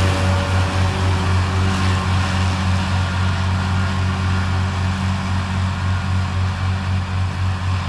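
Farm tractor engine running steadily at an even speed, with a deep hum and a light regular pulse.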